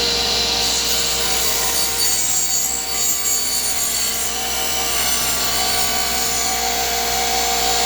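Table saw running, its blade ripping through a board being pushed along the fence: a steady motor whine under the noise of the cut.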